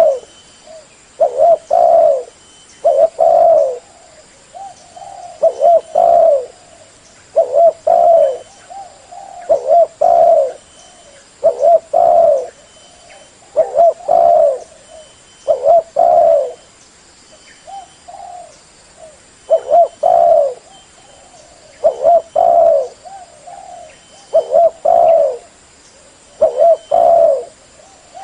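Spotted dove cooing over and over, a phrase of a few low coos roughly every two seconds.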